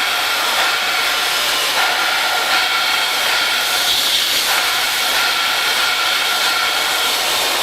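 Steady loud hiss of oxy-fuel cutting torches running, with a faint steady whine under it.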